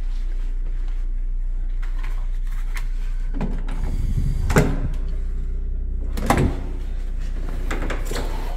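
A door being opened and passed through: two loud clunks about a second and a half apart over a steady low hum.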